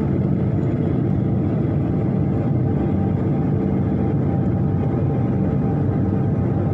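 Cabin noise of a jet airliner in flight: its turbofan engines and the rushing air make a steady, loud low rumble with a faint even hum in it.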